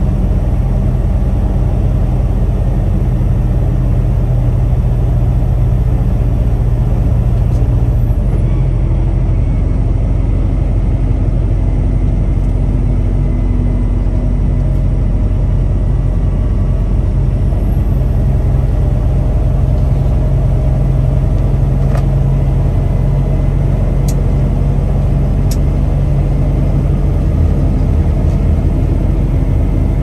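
Peterbilt 579 semi truck running at a steady speed: a low, steady engine drone with tyre and road noise, and a few faint clicks in the second half.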